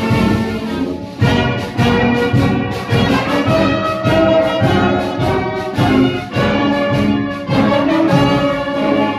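Brass band of cornets, euphoniums and tubas with drums playing a march at full volume, with a steady marching beat.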